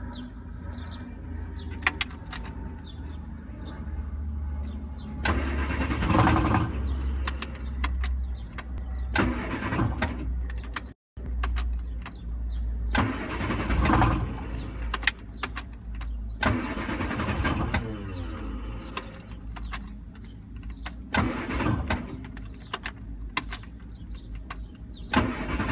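A 1974 MG Midget's engine being cranked on the starter again and again, turning over but not catching. The cranking comes in several louder surges of a second or two, with a brief cut in the sound about halfway through. The car turns over but won't start: spark plugs have been cleaned, starter fluid tried and the fuel pump is fine, and the owner guesses at too little air.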